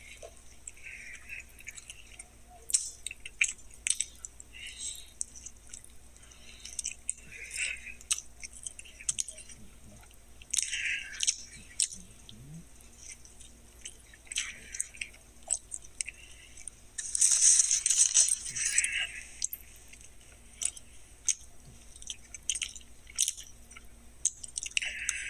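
A man biting and chewing a Burger King Philly Melt sandwich: scattered soft crunches and mouth clicks, with a louder rustling stretch about seventeen seconds in.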